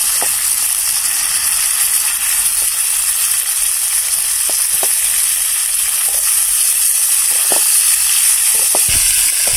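Hot oil sizzling steadily in a steel kadhai as stuffed brinjals are dropped into fried garlic and cumin and turned with a spatula, with a few short clicks and knocks scattered through.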